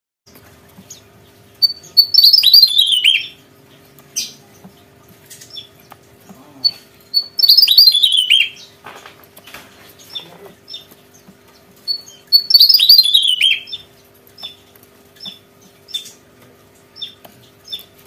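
Javan tesia singing: three loud song phrases about five seconds apart, each a quick tumbling run of notes falling in pitch. Short single high call notes come between the phrases.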